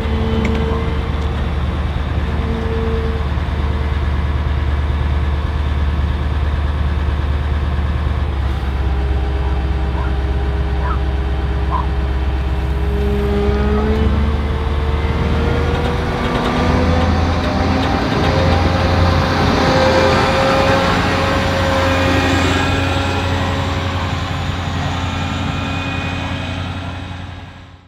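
Heavy farm machinery working a maize harvest: engines run steadily under a constant low hum, with their pitch shifting and rising about halfway through. The sound fades out near the end.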